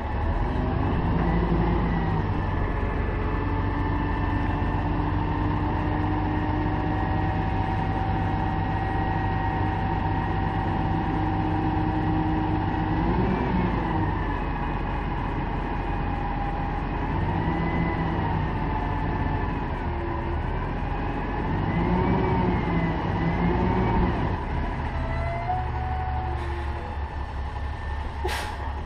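Dump truck's diesel engine running steadily as the bed is raised to tip a load of mulch, the engine note rising and falling several times through the middle. A short sharp noise sounds near the end.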